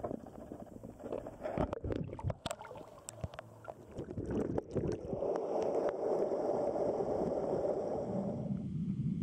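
Stream water rushing and gurgling as heard through a submerged camera, with scattered sharp clicks and knocks in the first half. The rushing becomes steady and dense about five seconds in and drops lower in pitch near the end.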